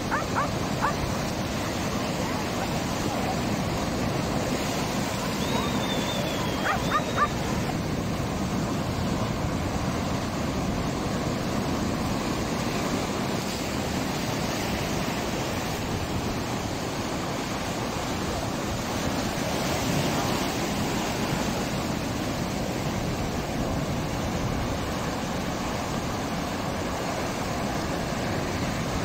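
Ocean surf breaking and washing over rock ledges: a steady, unbroken rush of waves. A brief high-pitched call and a few short sharp clicks stand out about six to seven seconds in.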